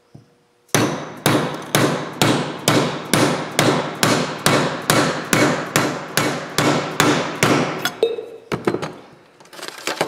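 Hammer blows on a homemade driver made from an old oil filter, driving a steel Speedy sleeve down onto a crankshaft damper hub. There are about seventeen steady strikes, a little over two a second, then a few lighter knocks and clatter near the end as the sleeve seats.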